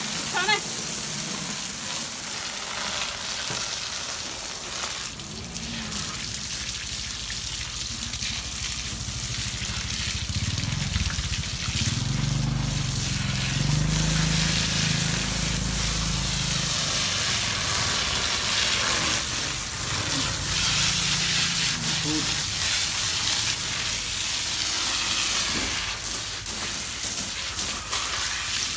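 Water from a garden hose spraying steadily onto a dog's wet coat and the wooden deck beneath it, a continuous hiss and splatter.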